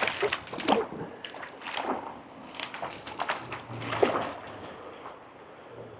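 A hooked trout splashing at the surface of a shallow creek as it is played in, a series of irregular splashes.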